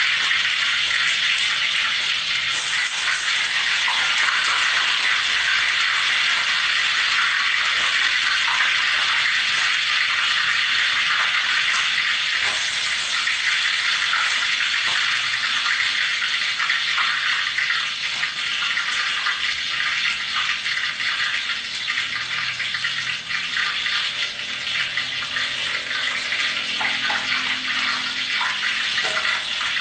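A steady, even hiss, like water rushing from a tap.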